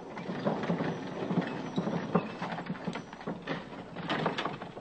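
Hoofbeats of a team of horses pulling a chariot: a run of irregular thuds and knocks.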